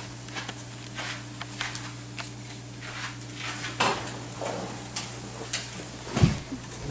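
Scattered clinks and knocks of pans and utensils in a home kitchen over a steady low hum, with a heavier thump about six seconds in.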